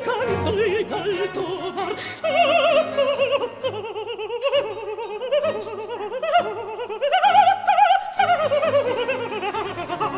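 Background music: a woman's operatic voice singing an aria with strong vibrato and quick runs, holding a long high note about seven seconds in, over instrumental accompaniment.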